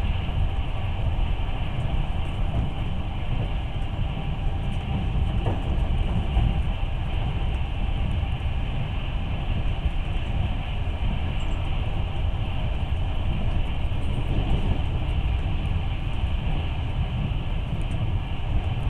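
Passenger train running, heard from inside the carriage: a steady low rumble of wheels on the track.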